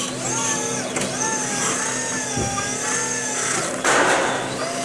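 Electric motors of a Crown stand-up reach truck whining, the pitch gliding up and down as the forks and mast move. A short loud hiss cuts in about four seconds in.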